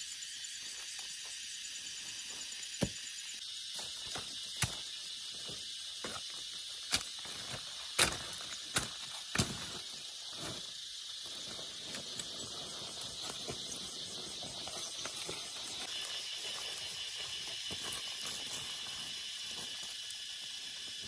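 Steady high-pitched insect chorus with a fine pulsing trill, changing pitch and texture a couple of times, broken by scattered sharp knocks and snaps, about six of them, clustered between about 3 and 10 seconds in.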